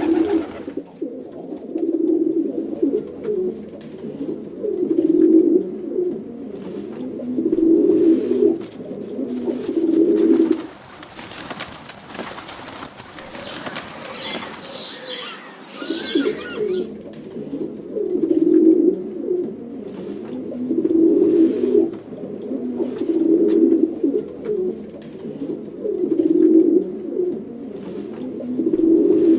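Pigeons cooing: low, throaty coos repeating about every two to three seconds. They pause for several seconds about eleven seconds in, when a fainter, higher scratchy sound is heard, then resume.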